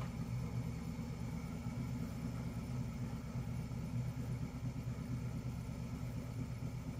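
Land Rover engine running steadily at low revs as the truck crawls over rocks on a steep trail.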